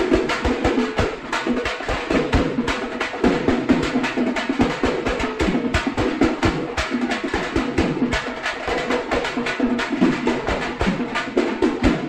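Background music with a fast, busy percussion beat.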